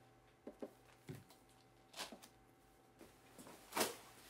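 Quiet shop room tone with a steady low hum, broken by a few soft knocks and handling noises; the loudest comes about four seconds in.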